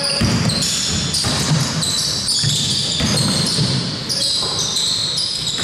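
Basketball court sounds in an indoor arena: the ball bouncing on the floor amid players' voices and other court noise.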